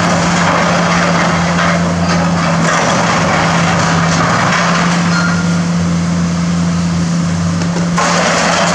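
Hydraulic demolition excavator's diesel engine running steadily under load, under the grinding and crashing of steel framing and debris as its attachment tears into the building.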